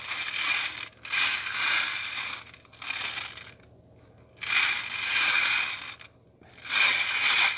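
Plastic bingo balls rattling and tumbling inside a small hand-cranked orange plastic bingo cage as it is turned to mix the numbered balls for a draw. The rattle comes in bursts of a second or so with short pauses between turns.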